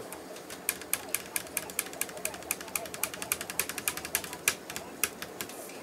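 Ratcheting screwdriver clicking as it is turned, a quick even run of small sharp clicks, about five a second, during screw work on a laptop.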